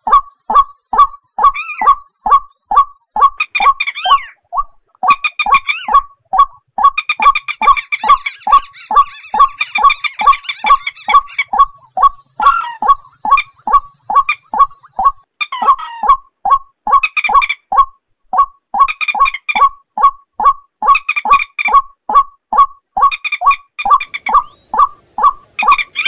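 Bird-lure recording of swamp rails, white-breasted waterhen among them: a steady run of short croaking notes, about two and a half a second. Bouts of higher, chattering calls come in and drop out over it.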